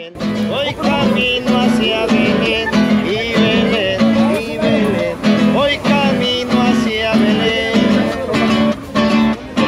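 Acoustic guitar strummed in a steady rhythm with a repeating bass-note pattern, and a voice singing along.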